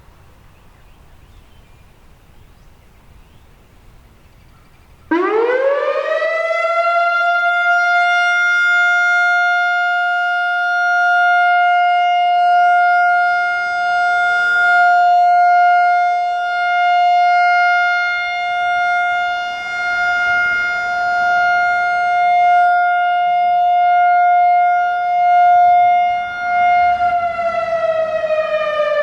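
Whelen WPS-4004 analog electronic outdoor warning siren sounding its steady alert. It cuts in abruptly about five seconds in and slides up in pitch over a couple of seconds. It then holds one steady tone, very loud, swelling and fading as the rotating head turns, and near the end starts to wind down, falling in pitch.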